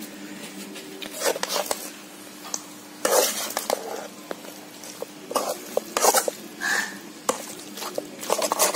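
Slotted steel spatula scraping and clattering against a metal kadai as chicken pieces in thick masala are stirred, in irregular strokes with several sharper scrapes, over a faint sizzle of frying.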